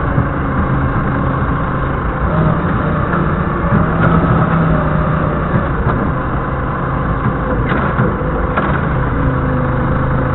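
Doosan 4.5-ton forklift's engine running steadily as the forklift drives, a continuous low hum with small changes in pitch.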